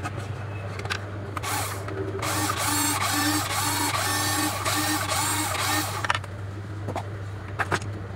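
Small brushed motors and plastic gearboxes of a toy RC off-road car, spinning its wheels free for about four seconds. The whine rises and falls about twice a second. The front and rear drives run normally again after new motor brushes were fitted. A few handling clicks follow, over a steady low hum.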